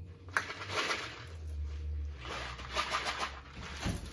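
Salt poured from a cardboard box into a measuring cup in two short spells, a dry granular hiss, with a light knock as the pouring starts.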